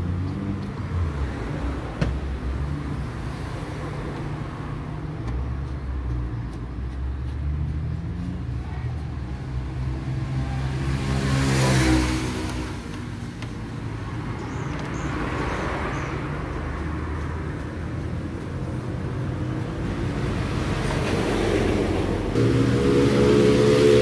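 Low motor-vehicle engine rumble with no speech. Around halfway through it swells to a peak and falls away, like a vehicle passing.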